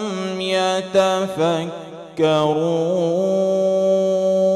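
A male Quran reciter chanting in melodic tajweed style, drawing out a vowel with ornamented turns of pitch. There is a short break about two seconds in, then a long held note.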